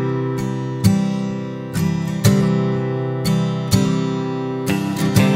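Background music: a strummed acoustic guitar with an even, steady beat.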